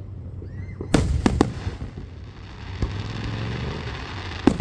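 Aerial fireworks shells bursting: three sharp bangs in quick succession about a second in, a steady hiss building after them, and another pair of loud bangs near the end.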